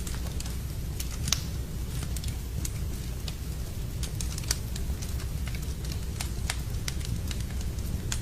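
Wood fire crackling in a fireplace: scattered sharp pops and snaps over a steady low rumble, with one louder pop about a second in.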